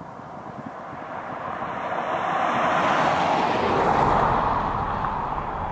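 Small business jet on final approach, its engine noise an even rush that grows louder as it nears, peaking about four seconds in and then easing slightly.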